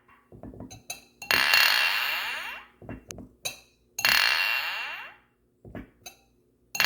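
Glasses clinking: a bright clink about a second in and another about four seconds in, each ringing out for over a second, with lighter taps and clicks between. A third clink rings at the very end.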